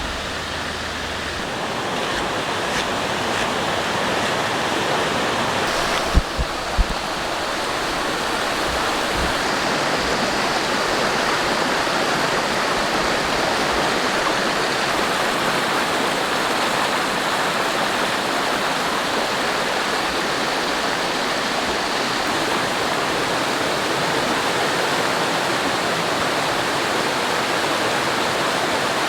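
Mountain stream rushing steadily, a continuous loud water noise, with a few brief low thumps about six seconds in.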